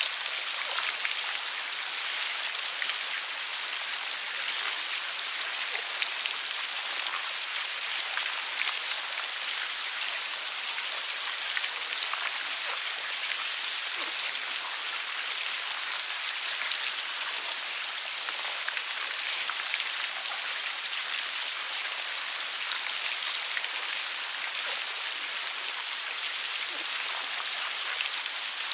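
A dense mass of maggots squirming and crawling over one another close to the microphone: a steady, fine crackle of many tiny clicks.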